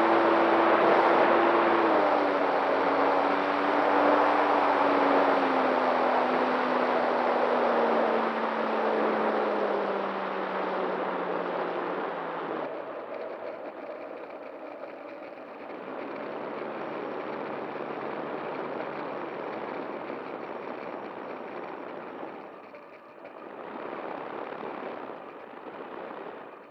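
Electric motor and propeller of a Dynam T-28 Trojan RC plane heard from its onboard camera under a loud rush of air. The motor's pitch falls steadily over the first twelve seconds, then only the air rush remains, dipping twice and fading out at the end.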